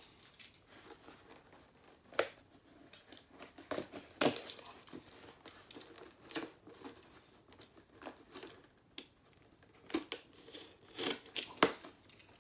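Utility knife slitting the packing tape on a cardboard box: irregular short scrapes and cuts, with rustling of tape and cardboard, a few sharper strokes near the end.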